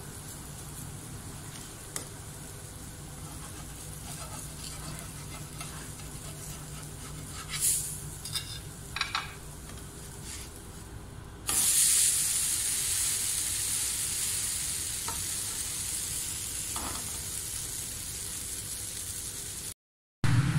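Dosa cooking on a hot iron tawa: a faint sizzle over a low steady hum, a few short scrapes around the middle, then a sudden loud sizzle about halfway through that slowly fades.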